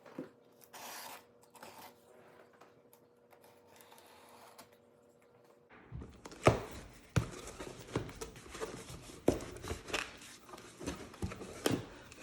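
A cardboard shipping box being opened by hand: quiet handling at first, then from about halfway a busy run of sharp knocks, scrapes and tearing as the packing is cut and pulled open.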